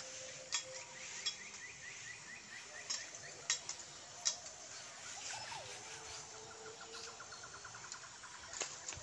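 Dry bamboo leaves and sticks crackling, with several sharp snaps, as people walk over the leaf litter and gather sticks. A bird's fast trill of short chirps sounds twice in the background.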